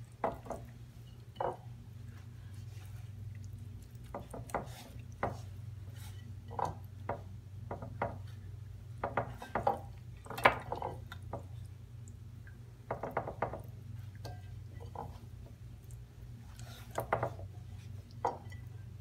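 Hands working a wet chermoula marinade into a whole fish and scooping it off a ceramic plate: scattered wet squelches, taps and light clinks against the plates, over a steady low hum.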